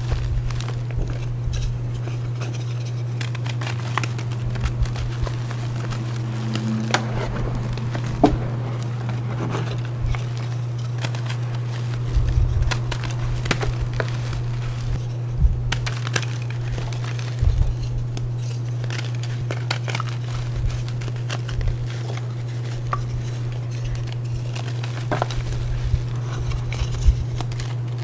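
Hard, glassy reformed gym chalk bars being crushed and crumbled in bare hands: irregular crisp crunches, crackles and sharp snaps as the chalk breaks into pieces and powder, a few louder cracks standing out. A steady low hum runs underneath.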